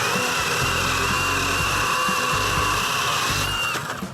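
Milwaukee cordless battery pruning saw running at full speed and cutting through wood: a steady high motor whine over the chain's rasping noise, which stops shortly before the end.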